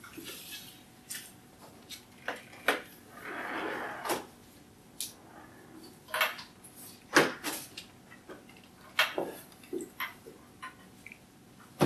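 Scattered sharp knocks and clicks with some rustling as papers and small objects are handled at a wooden lectern. There is a longer rustle about three to four seconds in, and the loudest knock comes a little past the middle.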